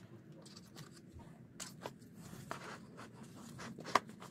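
Black plastic stackable planter pots and drip tubing being handled and shifted: light scrapes and rustles, with a sharp click about four seconds in.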